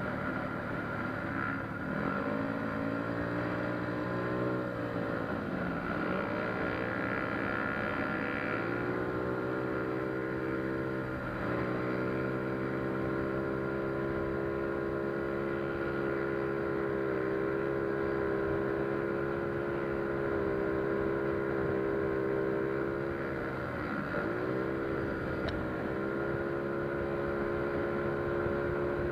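Single-cylinder four-stroke engine of a Yamaha Mio Soul scooter, bored to about 160cc with a 59 mm chrome bore, big valves and a 28 mm carburettor, running at high steady revs. Its pitch dips briefly and climbs back again four times as the throttle is eased and reopened.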